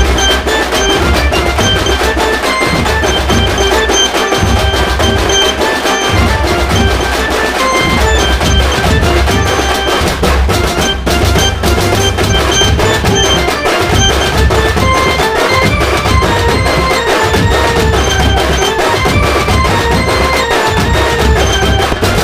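Music with a strong drum and percussion beat.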